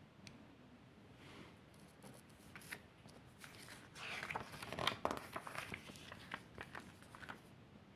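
Faint rustling and tearing of packaging as a Blu-ray box set is unpacked by hand, with scattered small clicks and crinkles. It is busiest and loudest about four to five and a half seconds in.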